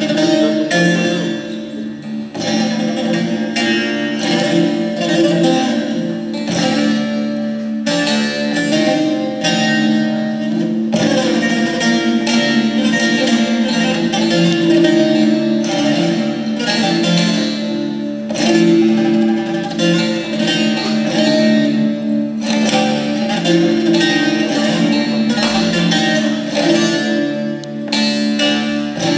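Two bağlamas (Turkish long-necked lutes) playing a zeybek tune together: rapid plucked strokes carry the melody over a steady low drone of open strings.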